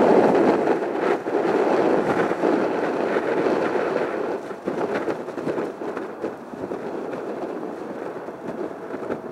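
Jet airliner's engine noise, a rough rumble that is loudest at first and fades steadily as the aircraft moves away.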